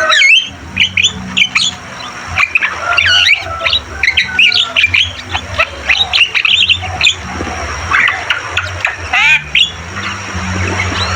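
Javan mynas calling: a dense, overlapping run of harsh squawks, chirps and short whistles with no pause.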